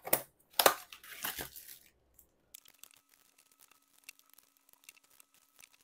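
Scissors cutting open the plastic wrap of a trading-card booster box, with tearing and crinkling in three quick bursts over the first two seconds, then only faint handling.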